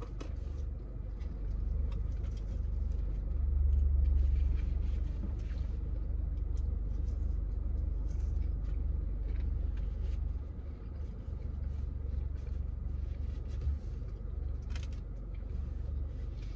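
Low, steady rumble inside a car cabin, swelling a few seconds in, with faint crunching clicks as a crispy chicken nugget is bitten and chewed.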